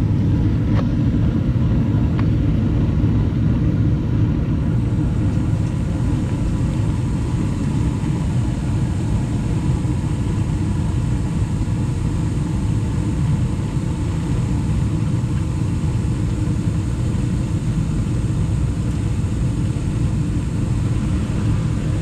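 2012 Bryant Legacy Line gas furnace running with a steady low rumble. Two faint clicks come in the first couple of seconds, and a faint high hiss drops away about four seconds in.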